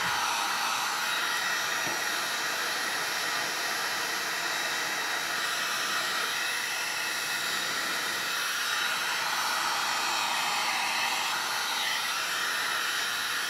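Electric heat gun running steadily with an even rush of air, blowing hot air onto a can-type filter capacitor to soften the glue under its cardboard sleeve.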